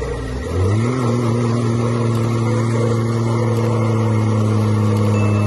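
4x4 truck engine revving up sharply about half a second in and then held steady at high revs under load, pulling against a tow strap.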